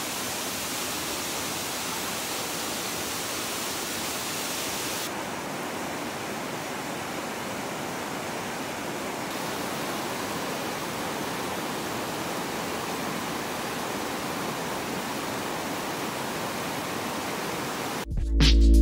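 Steady rushing of a mountain stream, an even hiss of water whose upper part dulls for a few seconds midway. Music starts just before the end.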